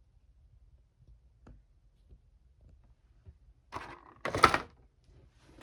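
Plastic action figure being handled on a table: a few faint clicks, then about four seconds in a brief louder rustle with a sharp knock.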